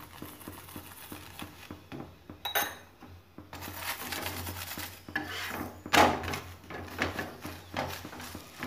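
Steel spoon and spatula scraping and clinking on a flat tawa as oil is spread over a thepla frying on it, with several louder scrapes among the light scratching.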